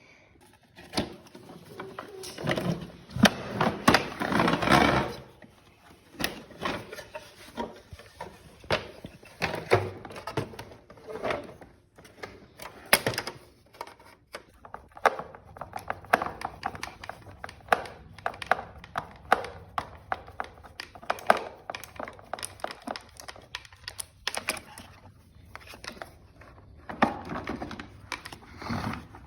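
Irregular clicks, knocks and light rattles of hard parts being handled, the kind heard while working on a vacuum cleaner's plastic housing; a denser run of knocking comes a few seconds in.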